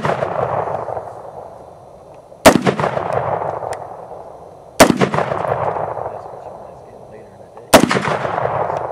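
AR-style rifle firing three single shots, spaced two to three seconds apart, each followed by a long echo that dies away over a second or more.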